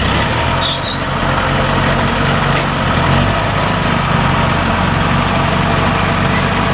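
Large diesel engine running steadily at a low idle, its note shifting slightly about three seconds in.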